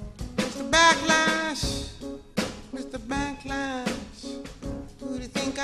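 Live music: a piano played with sharp percussive strikes, and a woman's voice singing drawn-out notes at about one second in and again around three seconds in.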